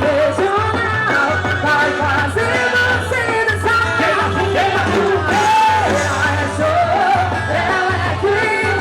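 Loud amplified forró-style junina music: a singing voice over melody and a steady pulsing bass.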